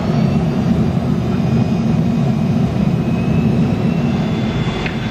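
Jet airliner cabin noise during the landing roll on the runway: a loud, steady rumble of the engines and the rolling aircraft, with a faint high engine whine above it.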